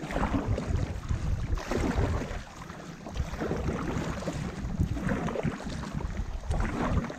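Wind buffeting the microphone of a camera mounted low on an inflatable stand-up paddleboard, with paddle strokes splashing in the water every second or two.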